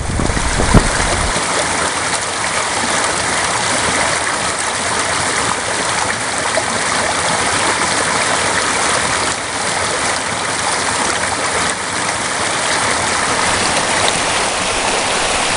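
Small rocky creek running over stones and low cascades: a steady rush of water.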